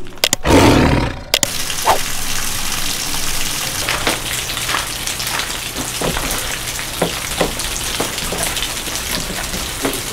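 Steady hiss of running or splashing water with scattered small spatters, after a louder burst about half a second in.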